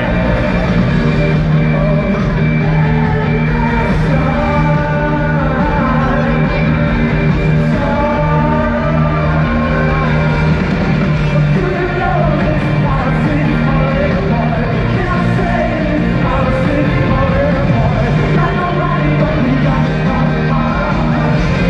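A live rock band playing loudly with a lead singer, heard from the audience at an arena show. The music runs steadily throughout.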